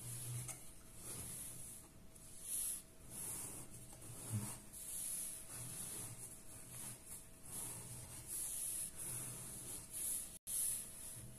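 Faint, irregular rubbing and scraping of the 3D-printed motor's wooden base shifting on a tabletop as it is turned by hand, over a faint steady hum.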